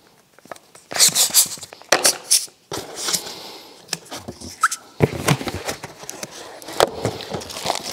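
Small latex balloons being inflated and handled: short bursts of air hissing, then the rubber squeaking briefly and rustling with small clicks as the balloons are knotted.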